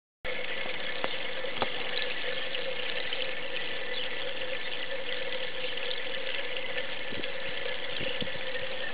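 Steady splashing and trickling of water in a small garden pond, with a steady hum-like tone running through it. It starts abruptly about a quarter of a second in, with a few faint ticks on top.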